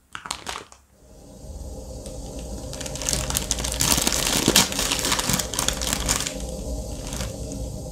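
Hands crinkling and tearing open the plastic wrapper of a Nongshim Shin Ramyun instant noodle packet: a dense crackle of crumpling plastic from about three to six seconds in, after a few light clicks at the start. A low steady rumble runs underneath.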